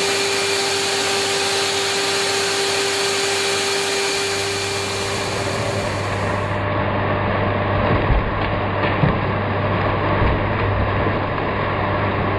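Vacuum cleaner running steadily through a hose, drawing the air out of a clear plastic bag. About six seconds in its steady whine drops away and a lower hum takes over, with a few dull knocks between eight and ten seconds.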